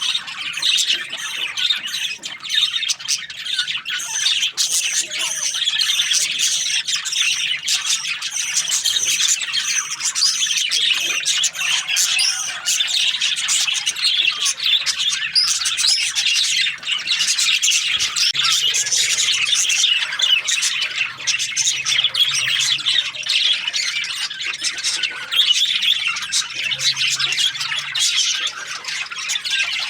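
A colony of budgerigars chattering: many overlapping chirps, warbles and squawks in a dense, continuous din.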